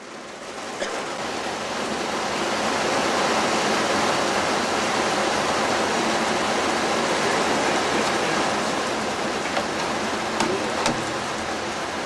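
Steady hiss of rain falling, rising over the first couple of seconds and then holding even, with a few faint clicks near the end.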